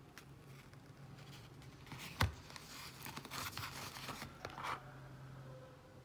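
A Zippo lighter being lifted out of its plastic gift box and insert: rustling and scraping of the box as it is handled, with one sharp click about two seconds in.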